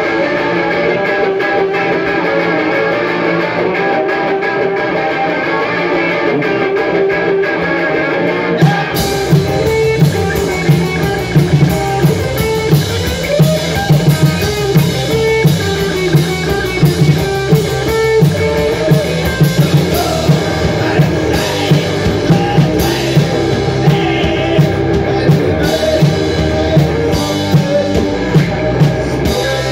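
Live rock band playing: electric guitar and bass guitar over a drum kit. About nine seconds in the music turns fuller and louder, with a strong steady beat.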